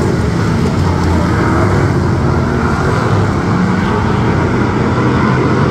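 V8 engine of a V8 Hotstox oval-racing stock car running during a race, loud and steady.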